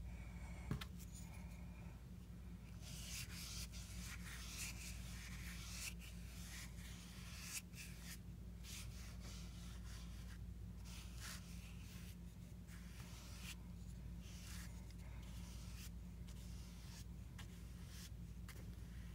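Wide flat bristle paintbrush dragged back and forth through wet paint on notebook paper: a faint run of scratchy brushing strokes with short pauses between them, stronger from about three seconds in.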